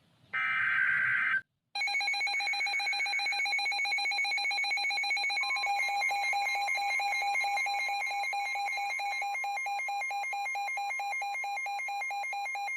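A NOAA Weather Radio receiver sounding a warning alert. A brief warbling burst of digital header data comes first. Then the radio's alarm beeps rapidly and continuously, and a steady single tone joins it about halfway through. The alert signals a newly issued severe thunderstorm warning, which is read out right after.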